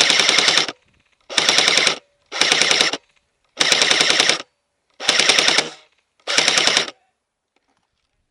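DBoy SCAR L airsoft electric gun (AEG) firing six short full-auto bursts, each under a second, its gearbox cycling rapidly, recorded very close from the rail-mounted camera.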